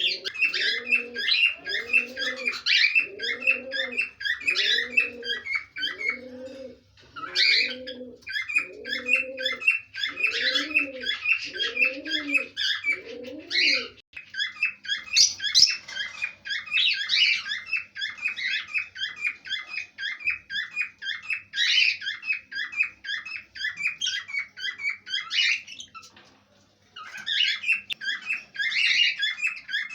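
A flock of pet parrots chirping and chattering non-stop in high, rapid calls, breaking off briefly near the end. For the first half, a low cooing call repeats about once a second under the chatter.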